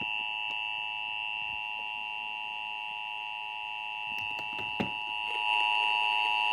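NOAA Weather Radio warning alert tone sounding through a weather radio's speaker: a steady, unbroken alarm tone with a second, higher tone over it, which gets a little louder about five seconds in. It marks the start of a new warning broadcast.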